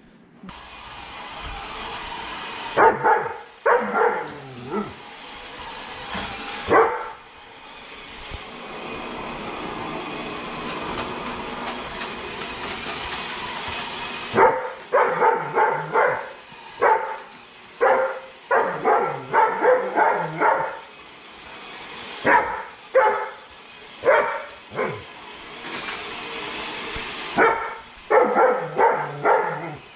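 German Shepherd barking repeatedly at a Roomba robot vacuum, a few barks near the start and then long runs of barking from about halfway. Under the barks runs the robot vacuum's steady motor and brush noise.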